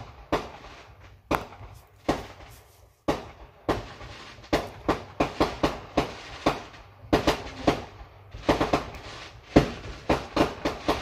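Aerial fireworks going off, heard from inside a car: a few separate bangs about a second apart, then from about four seconds in a quick run of cracks and bangs, several a second.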